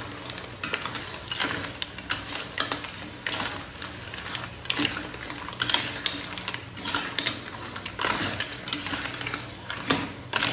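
Spatula stirring clams in their shells in a wok: the shells clatter against each other and the pan with quick, irregular clicks and scrapes.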